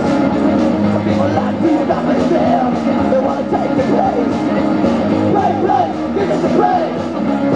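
A live garage rock band playing loud through a club PA: electric guitars over a steady drum beat, with bending melodic lines on top.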